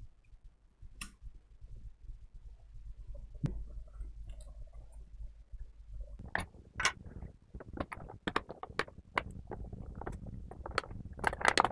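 Hands handling an open desktop computer's metal case and motherboard: scattered light knocks, clicks and rattles over a low rumble, sparse at first and growing busier from about six seconds in, thickest near the end.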